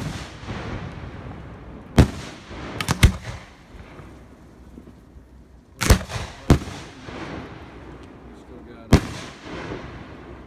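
Consumer aerial fireworks going off: about seven sharp bangs, some in quick pairs, a second or more apart, each with a short fading rumble after it.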